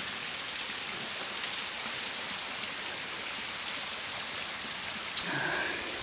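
Thin waterfall spilling down a rock face and splashing into a pool: a steady hiss of falling water with a rain-like patter of drops.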